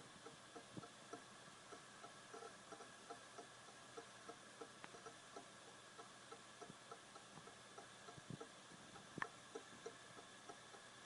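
Brand-new Western Digital Caviar Green 2 TB (WD20EARS) hard drive clicking: faint, quick ticks at about three to four a second, with one sharper click about nine seconds in.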